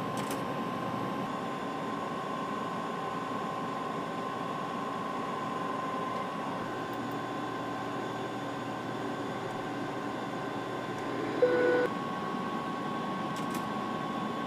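Steady flight-deck hum of a Boeing 787 on approach, airflow and fan noise with a faint steady whine. A short beep sounds about three-quarters of the way through.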